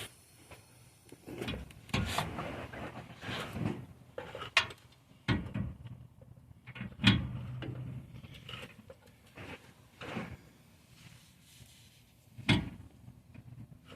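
Irregular metallic clanks and knocks of hand tools on exhaust clamps and hangers as a car exhaust is being tightened up, with a few sharp knocks standing out.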